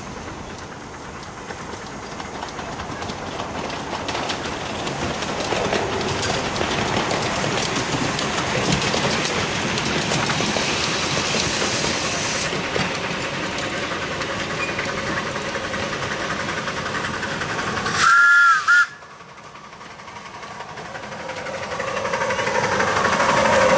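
Miniature steam locomotive hauling a passenger train: running and steam noise building as it comes closer. It gives one short, loud whistle about three quarters of the way through. Afterwards it is quieter for a moment, then louder again as the engine nears.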